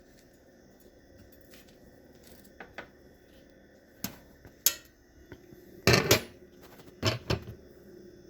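Kitchen knife and utensils knocking and clattering against a cutting board and dishes while cut peppers are handled: a few scattered knocks, the loudest a quick pair about six seconds in.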